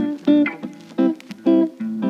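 Background music: a melody of plucked string notes, each starting sharply and dying away.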